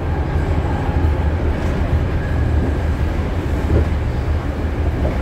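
Steady running noise inside a BART Legacy Fleet car between stations: a deep, continuous rumble from the wheels, rails and traction motors, with an even hiss above it.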